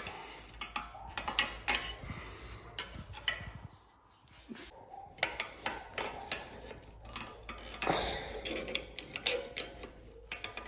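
Irregular metallic clicks, clinks and knocks of tools working on a front brake caliper, as its spring safety clip is pried off and handled.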